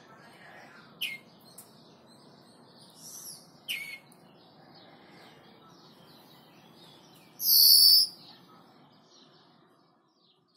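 European greenfinch calling: a few short, sharp high chirps, soft twittering between them, and one loud, longer high call about seven and a half seconds in.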